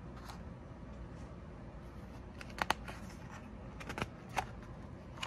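A page of a hardcover picture book being turned: a few short, soft paper flicks and rustles, about two and a half seconds in and again around four seconds.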